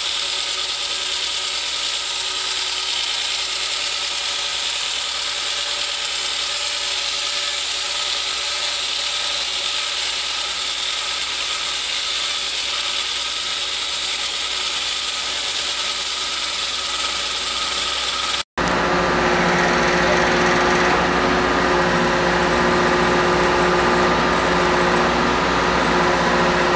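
Excavator-mounted hydraulic tunnel saw with a large water-cooled diamond blade cutting into a concrete block: a steady high whirring hiss. About two-thirds of the way through, a sudden cut to the carrier machine's engine and hydraulics running with a steady, lower, louder hum while the saw hangs clear of the block.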